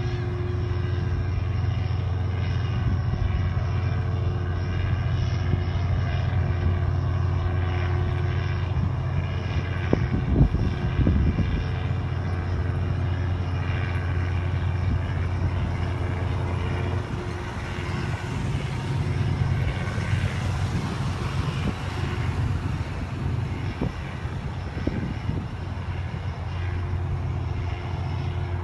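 Steady low engine drone with a few knocks about ten seconds in; the drone eases somewhat after about seventeen seconds.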